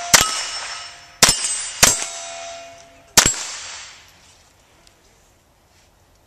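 Four rimfire rifle shots, about a second or less apart with a longer gap before the last. Each is followed by the ringing of a struck steel target plate, which fades over about a second.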